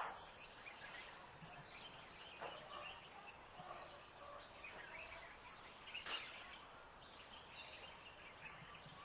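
Faint outdoor ambience with many short bird chirps scattered throughout, and a brief sharper sound at the start and another about six seconds in.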